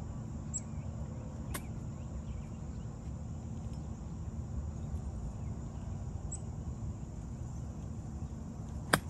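Quiet outdoor background with faint bird chirps, then near the end one sharp click of a golf club striking the ball on an approach shot. A lighter tick comes about one and a half seconds in.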